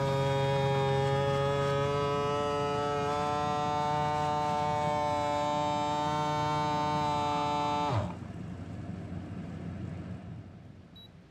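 Megawise vacuum sealer's pump motor running with a steady hum that rises slightly in pitch as it draws the air out of the bag of apple slices. It cuts off about eight seconds in, winding down in a quick falling whine, and a short beep sounds near the end.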